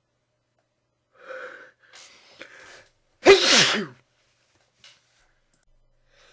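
A person sneezing into a handkerchief: two breathy wind-up inhales, then one loud sneeze about three seconds in, its voiced cry falling in pitch.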